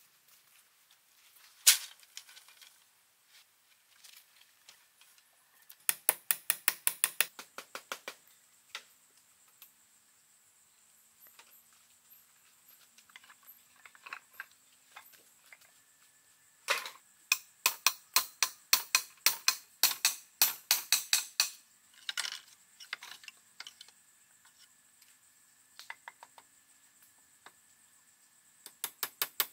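Rapid runs of sharp clicks, about seven a second: a short burst about six seconds in and a longer one from about seventeen to twenty-two seconds, with scattered single clicks between.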